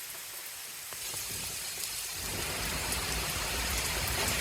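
Heavy rain falling, a steady hiss that grows louder, with a low rumble building underneath from about two seconds in.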